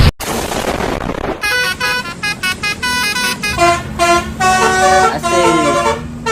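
A bus's multi-tone 'telolet' musical horn playing a quick tune of short tooting notes at changing pitches, starting about a second and a half in after a stretch of steady noise.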